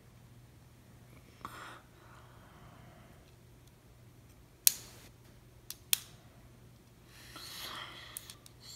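Small plastic parts of a toy robot-kit gearbox clicking as they are pressed and snapped together by hand: one sharp click about halfway through, then two quicker ones a second later.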